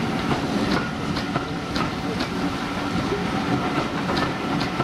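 Railway passenger coaches rolling past close by, their wheels clicking irregularly over rail joints above a steady rumble.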